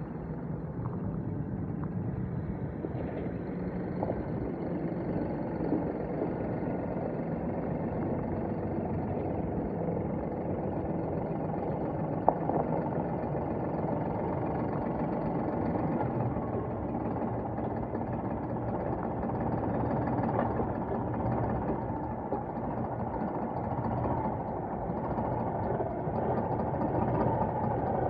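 Scania R480 hooklift truck's inline-six diesel engine running as the truck drives slowly across a gravel yard, growing louder near the end as it comes close. One sharp click about twelve seconds in.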